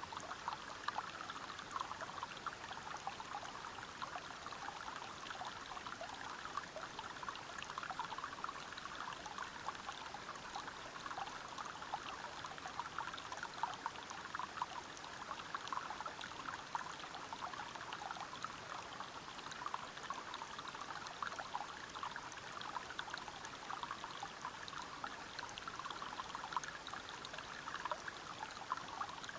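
River water flowing steadily over rocks: an even rush of water with many small splashes and trickles, unchanging throughout.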